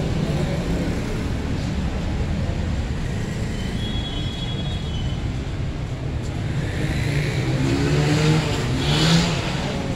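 Street traffic: a steady rumble of vehicle engines, with one vehicle passing close and growing louder near the end.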